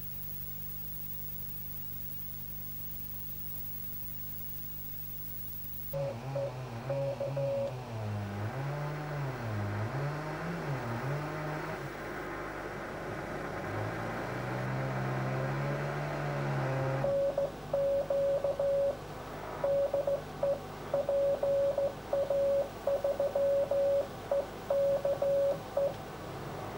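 Audio from an amateur moonbounce station's radio receiver: a low steady hum, then from about six seconds in a rush of receiver noise with warbling, swooping tones. From about seventeen seconds a single Morse code tone is keyed on and off over the noise.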